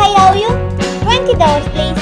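Background music with a steady beat and a bending melodic line.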